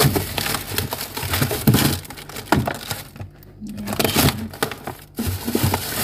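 Thin plastic produce bags and a clear plastic clamshell container rustling and crinkling in irregular bursts as they are handled and shifted on a refrigerator shelf.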